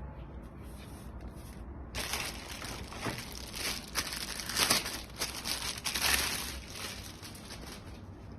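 Crinkling and rustling as the spray mop's parts are handled, in a run of bursts that starts about two seconds in and dies away a couple of seconds before the end.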